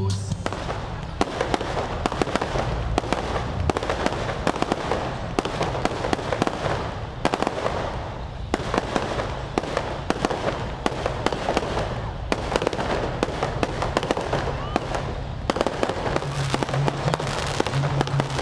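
Fireworks going off in a rapid, unbroken barrage of sharp pops and bangs.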